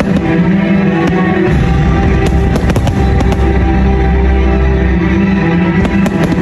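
Fireworks going off over loud music, with a cluster of sharp bangs and crackles in the middle and a couple more near the end.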